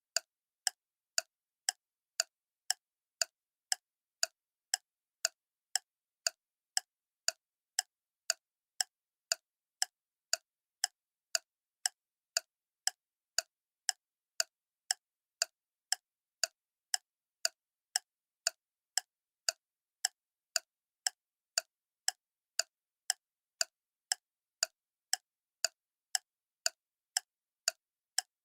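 Clock ticking steadily, a sharp tick about twice a second with silence between ticks.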